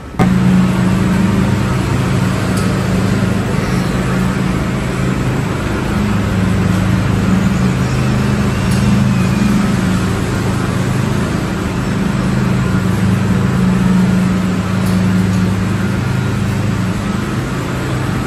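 Steady drone of a motor vehicle in motion, a low engine hum over road noise, unbroken throughout.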